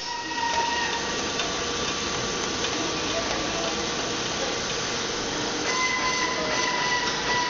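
Steady hiss and hum of tyre-retreading workshop machinery, with a thin whistling tone that fades about a second in and returns near the end.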